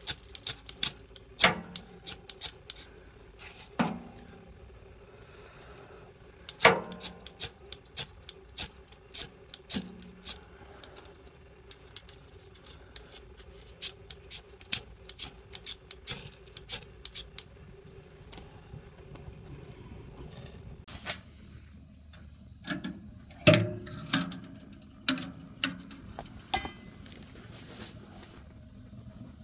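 Irregular clicks and knocks, some with a short low ring, over a faint steady hum that stops about twenty seconds in.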